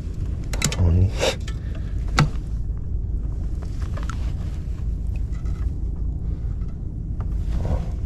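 A steady low rumble of wind buffeting the microphone on a fishing kayak, with a few sharp knocks and clicks in the first couple of seconds.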